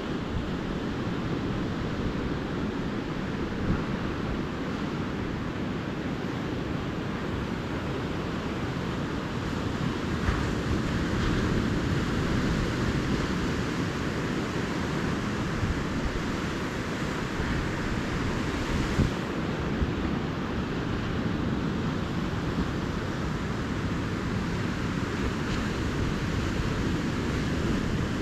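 Calm Atlantic surf washing steadily onto the beach, a continuous rush of waves with a deep low rumble and gentle swells in loudness.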